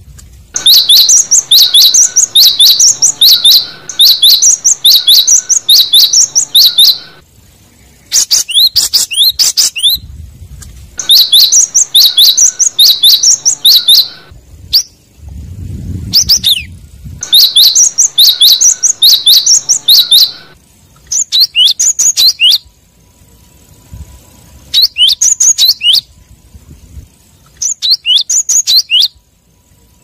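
Cinereous tit (gelatik batu) singing territorial song: loud bouts of quick, repeated high phrases, a few seconds each with short pauses between, the sort of call used to lure and provoke rival males. After about twenty seconds the bouts become shorter and more scattered.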